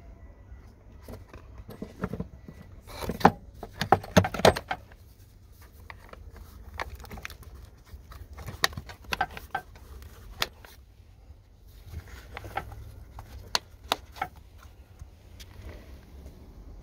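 Hard plastic clicks, knocks and rattles as a paper engine air filter is seated in its plastic airbox and the lid is pushed down and its clips snapped shut. The clicks come in three clusters, the loudest a few seconds in.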